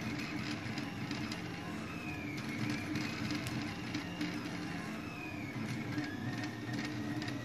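Steady low background hum, with faint small clicks of fingers handling nuts and wires on a mini quadcopter frame.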